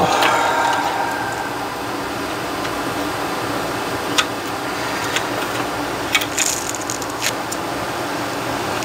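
Steady mechanical hum, with a few light clicks and taps as a bare instrument cluster circuit board is handled and hooked up to its power harness on a wooden bench.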